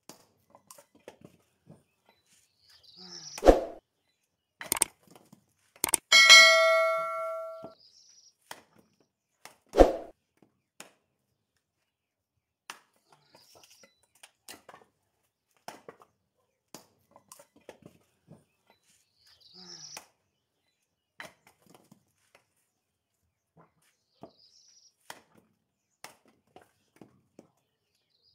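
Axe blows splitting firewood on a chopping block: a few sharp thunks of the blade into wood in the first ten seconds, one followed by a short metallic ring. Light knocks and clicks of handled wood follow.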